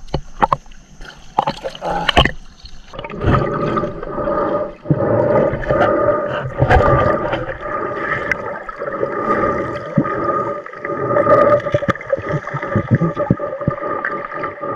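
Above-water splashing and clicks for the first few seconds, then muffled underwater sound as the camera goes under: a steady hum with scattered crackling clicks while a diver stirs up the muddy seabed among seagrass.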